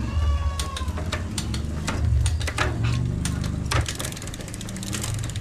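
Bicycle drivetrain clicking as the cranks are turned during a shifting check: chain and derailleur ticking, with repeated sharp clicks. A low motor hum underneath stops about four seconds in.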